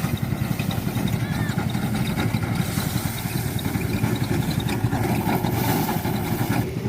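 Small engine of a paddy harvesting machine running steadily, a rapid low chugging with a hiss of working machinery above it.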